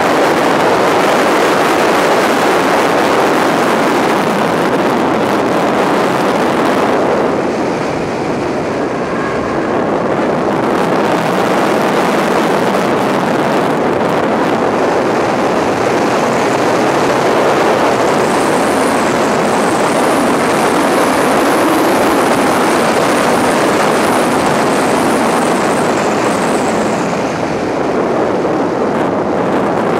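Subaru WRX at speed on a race circuit: the turbocharged flat-four engine, wind and road noise make one loud, steady rush that eases briefly about eight seconds in. A faint high whine rises and falls in the second half.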